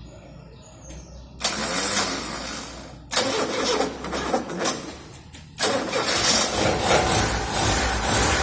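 Car engine being cranked and started: loud bursts of cranking with short breaks, then the engine catches and runs steadily from about five and a half seconds in.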